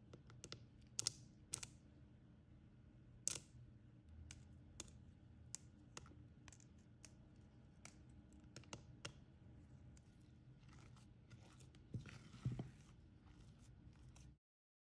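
Spatula mixing thick cookie dough in a glass bowl: scattered sharp clicks and taps, and a short scrape about twelve seconds in, over a faint low hum.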